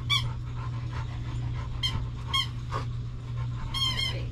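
A dog whining in short, high-pitched squeaks: one at the start, a couple in the middle and a quick run of them near the end, over a steady low hum.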